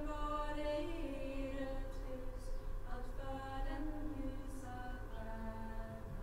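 Several female voices singing slow, held notes together without instruments, one steady note held underneath the moving parts.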